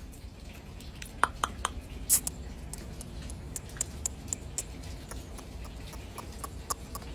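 Pet common raven making a run of sharp clicks and taps: a few louder ones about a second in, then many quicker, fainter ones.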